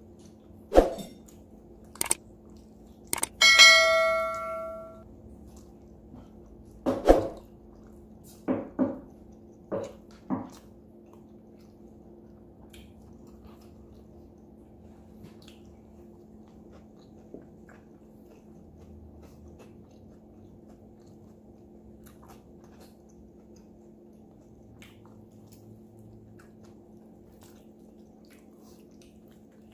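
Tabletop eating sounds as a roast Cornish hen is pulled apart by hand: a handful of sharp clicks and knocks in the first ten seconds. About three and a half seconds in, one bright clink rings on for over a second. After that only a faint steady hum remains.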